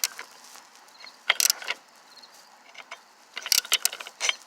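Short metallic clicks and clanks of a socket wrench on the variator nut of a Hyosung SF50 scooter, with a screwdriver wedged in the variator to hold it: a brief clatter about a second in and a quicker run of clicks near the end.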